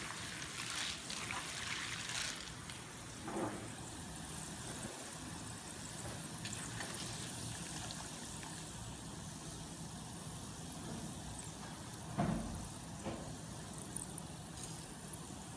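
Soaked dal deep-frying in a wok of hot oil, a steady hiss, while a metal slotted ladle lifts the fried dal out and oil drains back into the pan. A couple of brief scrapes of the ladle against the wok, about three seconds in and again near twelve seconds. The dal is done: it has floated up in the oil.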